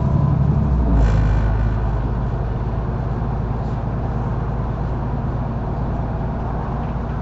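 Mercedes-Benz O530 Citaro bus heard from inside while driving. The engine note drops about a second in, with a short hiss. It then runs steadily at a lower pitch and slowly gets quieter.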